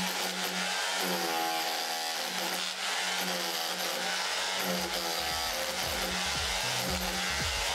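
Metabo KHE 2443 SDS rotary hammer running in hammer-only mode, chiselling concrete; a heavier low knocking sets in about five seconds in.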